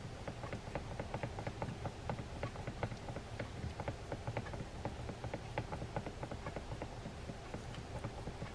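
Light, rapid, irregular ticking and clicking as a screwdriver turns small screws into the body of a Penn Clash II 2000 spinning reel.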